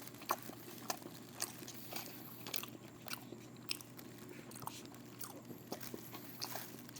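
Close-up chewing and wet mouth sounds of a person eating takoyaki, with many small sharp clicks and smacks spaced irregularly.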